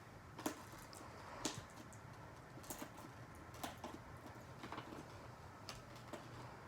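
Faint clicks and taps of a pen poking and prying at a cardboard product box, about one a second.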